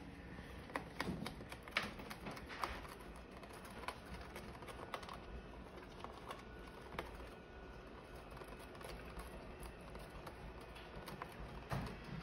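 Irregular light clicks and taps as a rosy-faced lovebird pecks and tugs at a paper gift box on a stone countertop, a few sharper taps standing out about a second in and near the end.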